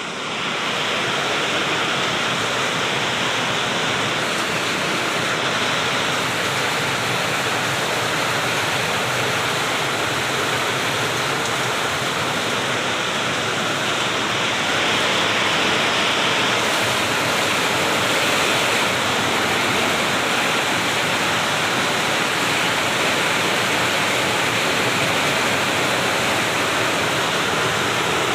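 Heavy rain pouring down steadily, a dense even hiss that swells slightly about halfway through.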